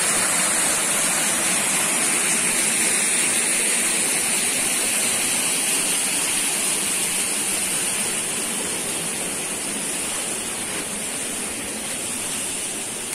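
Small forest waterfall pouring onto rocks: a steady rush of falling water that grows gradually fainter over the last several seconds.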